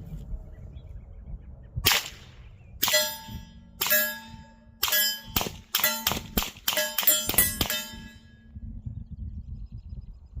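A suppressed 9mm pistol firing 147-grain subsonic rounds: about a dozen sharp, quiet cracks over some six seconds, the first few about a second apart and then quicker, each followed by a short ringing tone.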